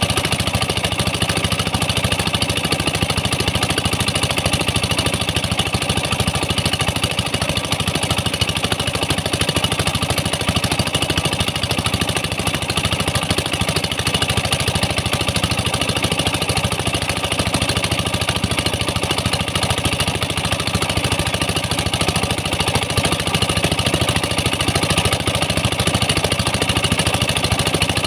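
Pump engines of a small land tin-mining operation running steadily, with water jets spraying onto sand and slurry.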